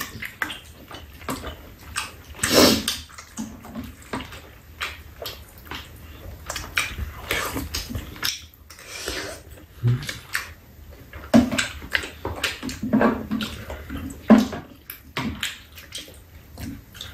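Two people eating tteokbokki with chicken: wet chewing and slurping of the saucy rice cakes, with chopsticks and a spoon clicking against the pot and dishes in many short, irregular strokes.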